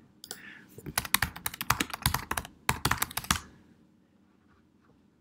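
Typing on a computer keyboard: a fast run of keystrokes lasting about two and a half seconds, with a short break partway through.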